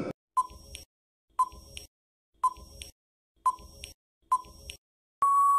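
Quiz countdown timer sound effect: five short beeps about a second apart, then one longer steady beep near the end as the countdown runs out.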